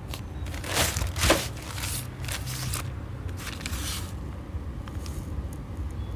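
Plastic courier mailer bag crinkling and crackling as it is handled, in a run of bursts over the first four seconds, then a few faint rustles, over a steady low hum.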